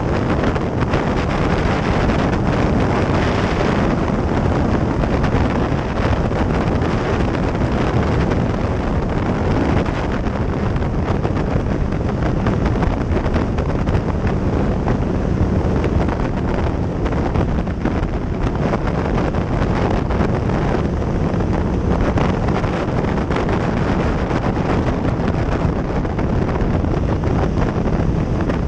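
Steady wind noise rushing over the microphone of a sport motorcycle riding at road speed, mixed with the bike's engine and road noise.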